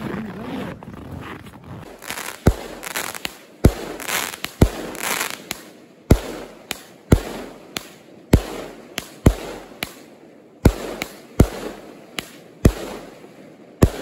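Aerial fireworks going off: a rapid string of sharp bangs, about fifteen starting some two seconds in, spaced half a second to a second apart, with hissing and crackling between the shots and echoing.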